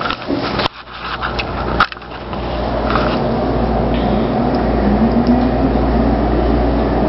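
Steady rush of water from a commercial flush-valve fixture flushing, with a few sharp knocks in the first two seconds before the rush settles in.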